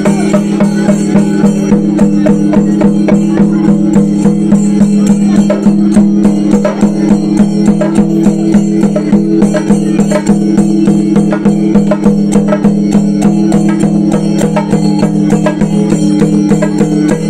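Traditional percussion music: fast, even drum strokes with jingling cymbals over a steady held drone.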